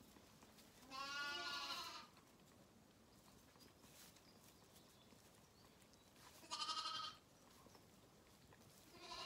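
Zwartbles lambs bleating: three separate bleats, about a second in, around six and a half seconds in with a quavering pulse, and another just at the end, with quiet between them.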